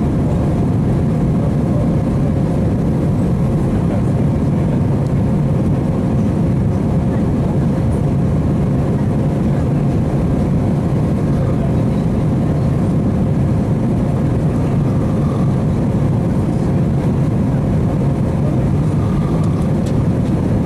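Steady engine and airflow noise inside the cabin of an Airbus A319-131 with IAE V2500 engines, a deep, even rush with a faint steady hum over it.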